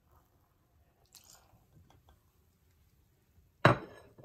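Frothy yeast mixture poured from a cup into a glass bowl of flour, giving a few faint soft splats, then near the end a single loud clink of the ceramic cup, with a brief ring.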